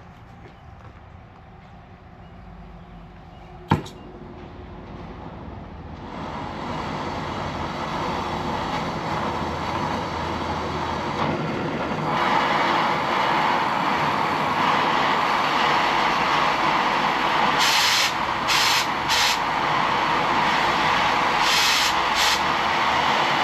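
Oxy-fuel cutting torch being lit with a sharp click about four seconds in, then a steady hissing flame that grows louder in two steps as the gas is turned up. A few brief high crackles come near the end.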